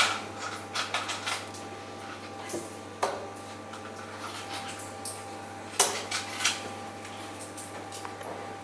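A steel-tip dart striking a bristle dartboard, among a handful of other sharp clinks and knocks in the room; the loudest knock comes a little before six seconds in.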